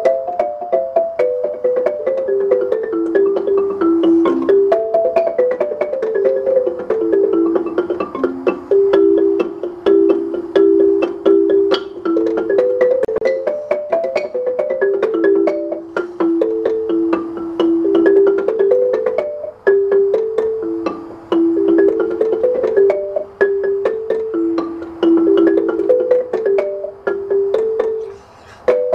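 Marimba played with mallets in quick, repeating melodic runs of struck notes that rise and fall in pitch.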